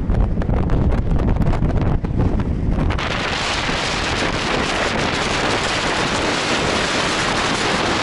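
Strong wind blowing across the microphone on an exposed mountain ridge. For about the first three seconds it buffets with a rough, uneven rumble, then it changes to a steadier rushing hiss.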